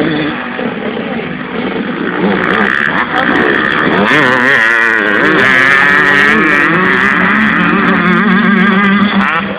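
Motocross dirt bike engine revving up and down with the throttle as the bike rides past, its pitch rising and falling, loudest from about four seconds in until near the end.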